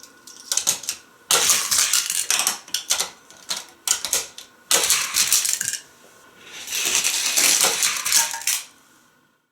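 Hot Wheels plastic track pieces and a die-cast toy car clicking and clattering in several rattling bursts about a second long, with short pauses between them. The longest and loudest burst comes near the end, after which the sound stops.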